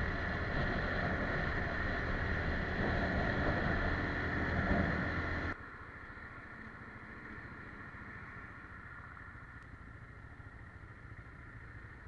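Motorcycle engine running on the road with wind rushing over the microphone. About halfway through it cuts abruptly to a quieter stretch of the engine running at low speed.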